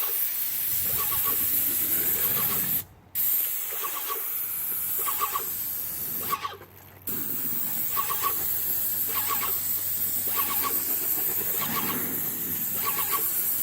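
Titan 440 airless paint sprayer spraying through a 211 tip: a steady high hiss from the spray gun, stopping twice briefly, about three seconds in and again around six and a half seconds.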